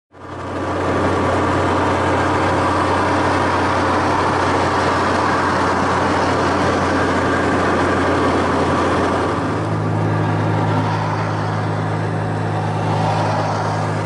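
Steady road noise inside a car at highway speed: a low engine and tyre drone with rushing wind and road hiss. The drone steps up slightly in pitch about nine seconds in.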